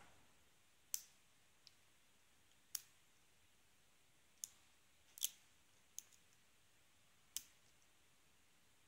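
Faint, sharp clicks, about seven spread unevenly, of a hook pick working the pin stack of a Squire SAL/40 5-pin padlock under light tension while the core sits in a false set.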